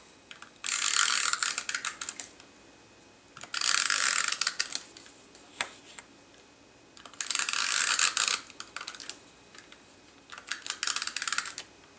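Hand-held adhesive tape runner drawn along the edges of a cardstock panel, laying down a strip of adhesive. Three strokes of about a second each, then a stretch of short clicks near the end.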